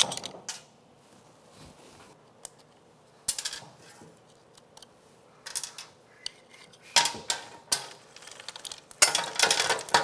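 Screwdriver prying the master link clip and side plate off a Kawasaki KLX110's steel roller drive chain, with sharp metal clicks and scrapes. From about nine seconds in, a fast continuous metallic rattle as the wheel is spun and the loose chain runs over the rear sprocket.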